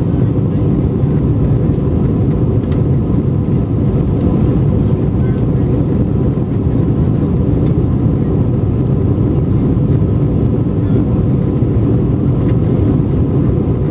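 Steady low roar inside the cabin of an Airbus A320-232 in flight: its IAE V2500 turbofan engines and air rushing past the fuselage, heard from a window seat.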